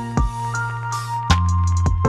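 Background music: melodic pitched tones over drum hits, with a deep bass note held through the second half.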